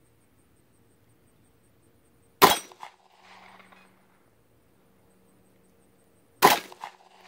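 Two handgun shots about four seconds apart, each followed by a fainter echo.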